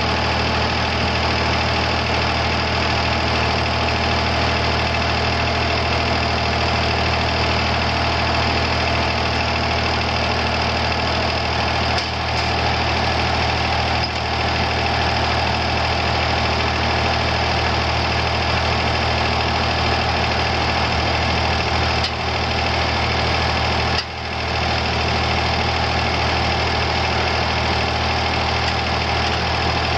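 Ford B10230 tractor's three-cylinder gas engine running steadily, with a few brief dips in level.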